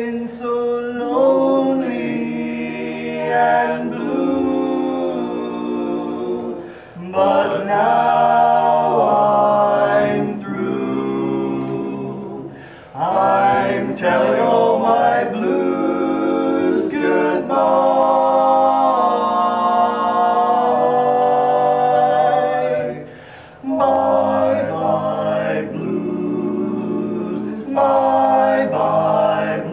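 Men's vocal quartet singing a cappella in four-part harmony, holding long chords in phrases separated by short breaths.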